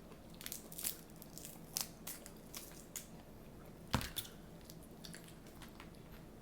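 Seafood shells, such as crab legs, being cracked and torn open by hand close to the microphone: a quick run of sharp cracks and snaps, the loudest about four seconds in, then a few softer clicks.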